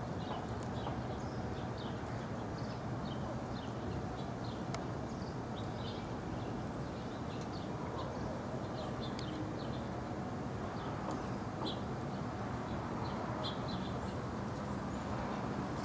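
Birds chirping with many short, high calls scattered throughout, over a steady low background rumble.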